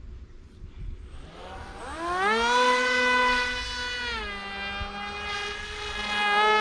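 Foam flying-wing RC plane's motor and propeller whining, rising steeply in pitch as the throttle opens about two seconds in, holding steady, dropping slightly about four seconds in, then rising again near the end.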